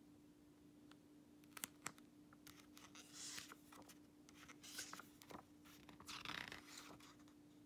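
Faint rustling and scraping of a glossy paper booklet being handled, with a couple of small clicks about a second and a half in, over a steady low hum.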